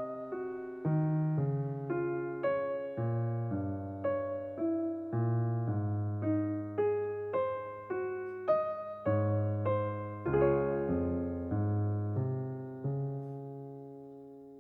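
Calm, slow electric piano music, a note or chord struck about every half second, ending on a held chord that fades out over the last couple of seconds.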